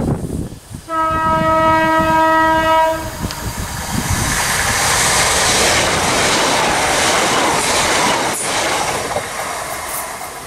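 Southeastern electric multiple-unit train sounds a single steady horn note for about two seconds as it approaches. It then passes at speed with a loud rush of wheels on rail and some clickety-clack, which eases off near the end.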